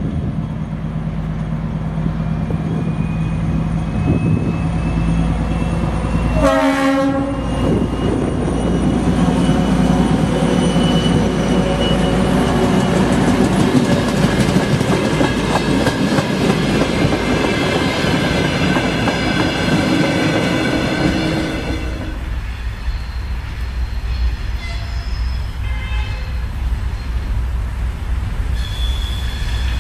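Twin-section 2M62 diesel locomotive running past at close range with a steady low engine note. About six and a half seconds in it gives one short horn blast, then the passing train rolls by with wheel clatter. After about 22 seconds the sound is quieter: another diesel locomotive running further off.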